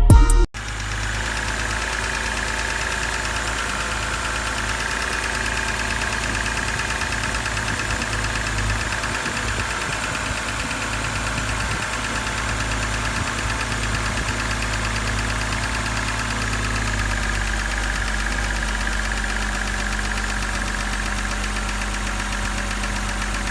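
BMW N52 straight-six engine idling steadily with a fast, even ticking from its hydraulic lifters, a tick the owner puts down to the oil breaking down so the lifters need to bleed. A brief snatch of music comes before it at the very start.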